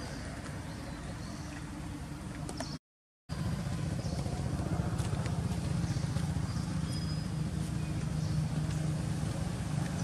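Steady background traffic noise, a low engine hum. It drops out completely for half a second about three seconds in, then comes back louder, with a few faint ticks over it.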